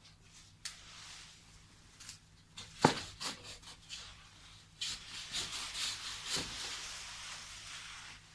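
Rustling and scraping of branches and wood being handled, with scattered knocks and one sharp loud knock about three seconds in.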